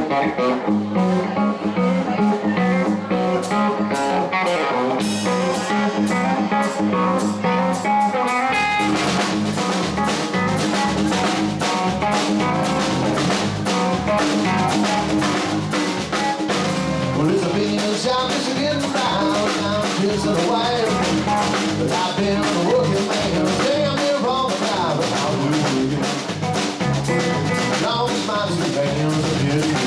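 Live band playing electric guitar, bass guitar and drum kit. The opening is guitar-led and light, and the full band with kick drum and bass comes in about eight seconds in.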